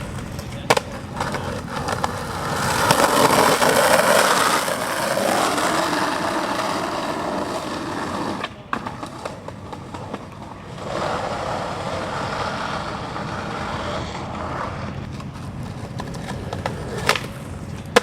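Skateboard wheels rolling on pavement, louder a few seconds in, broken by sharp clacks of the board about a second in, about halfway through and near the end.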